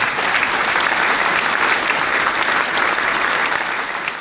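Applause from a crowd, many hands clapping in a dense steady patter that eases off near the end.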